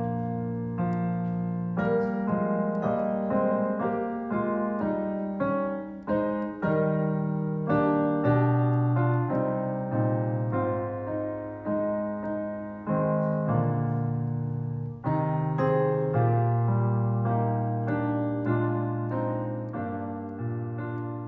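Solo piano playing slowly, chords and notes struck one after another and left to ring.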